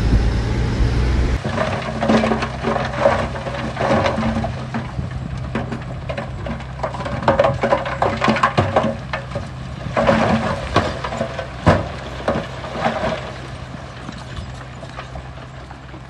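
Heavy earth-moving machinery working soil: a diesel engine running low and steady under irregular metallic clanks and scraping, which come thickest in the middle and fade away near the end. A louder, deeper engine rumble cuts off abruptly about a second and a half in.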